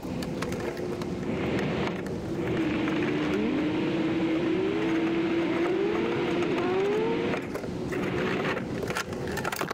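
Vehicle engine running steadily, with its pitch rising several times in a row between about three and seven seconds in, like an engine accelerating through its gears.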